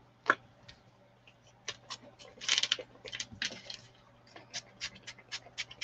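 Two short hissing spritzes from a small pump spray bottle of gold shimmer spray, about two and a half and three and a half seconds in. After them comes a run of light, evenly spaced clicks, about four a second.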